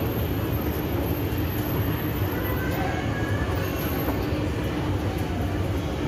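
Shopping-mall ambience: a steady low rumble with a faint murmur of distant voices.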